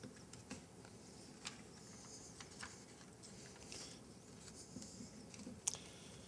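Very quiet room tone with faint scattered small clicks and rustles, one sharper click near the end.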